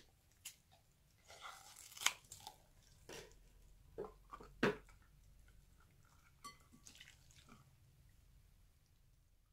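Water beads squishing and clicking as a hand squeezes the cut-open rubber skin of a stress ball and the beads spill into a glass bowl: a scattered run of faint wet squishes and small clicks, the sharpest about two seconds and four and a half seconds in.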